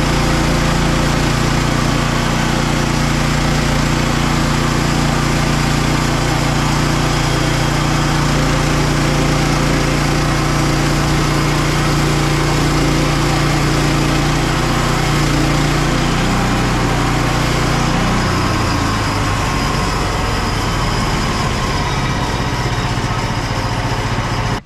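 Frontier OS27 bandsaw mill's petrol engine running steadily while its band blade cuts lengthwise through an ash log. The engine note shifts about three-quarters of the way through.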